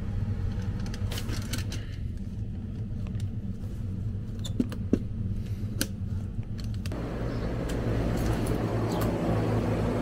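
Steady low hum of running air-conditioning equipment, with a few small metallic clicks from a brass pressure-port fitting being handled. About seven seconds in, a broader rushing noise of the outdoor condensing unit running takes over.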